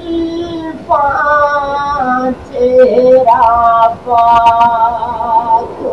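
A high voice singing long held notes that bend and waver, in phrases that break off every second or so; no instrument is heard.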